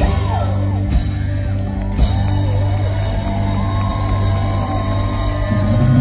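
A live pop-rock band playing through a festival PA, heard from the crowd: steady bass and guitar under a woman's sung line that slides up and down and then holds long notes.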